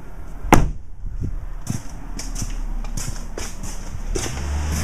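A pickup truck door slams shut once, about half a second in, followed by quieter scuffs and taps. A low steady hum comes in near the end.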